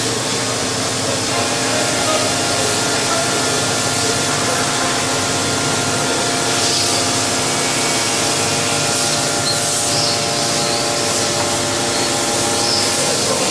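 Mazak VTC 300C CNC vertical machining center machining a part. A steady hiss runs throughout, with several steady whining tones from the spindle and cutter that set in about a second in.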